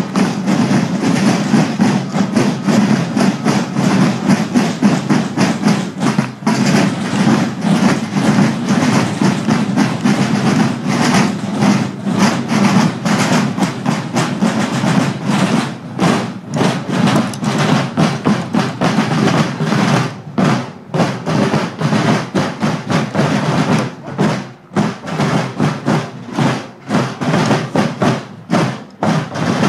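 Many field drums played together by marching guild drummers, a dense rattle of stick strokes that becomes more clearly separated into distinct beats in the second half.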